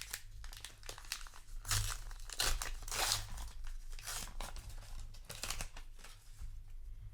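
A paper trading-card booster pack wrapper being torn open and crinkled in the hands, in several short rustling, tearing bursts.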